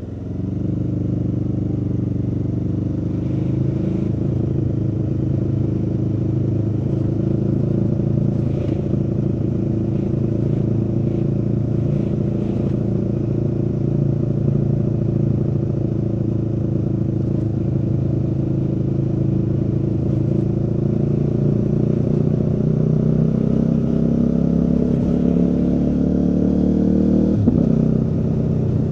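Aprilia Tuono V4 motorcycle's V4 engine running under way. It picks up right at the start, holds a steady pull, then climbs gradually in pitch over the latter half before the pitch drops sharply near the end.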